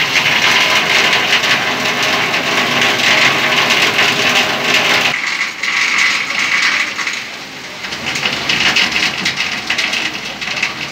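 Steady hiss of heavy rain and rushing floodwater, with voices talking over it; the sound changes abruptly about five seconds in.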